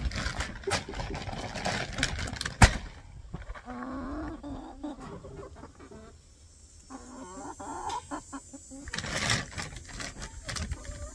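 Chickens clucking close by in short runs of low calls, over the rustle and handling of plastic feed bags, with one loud sharp knock about two and a half seconds in.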